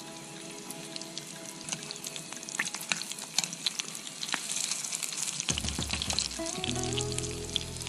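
Pelmeni frying in a pan, sizzling with many small crackles, while a spoon stirs and scrapes them around the pan.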